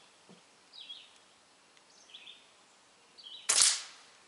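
Air rifle firing a single sharp shot about three and a half seconds in, with short bird chirps repeating several times before it.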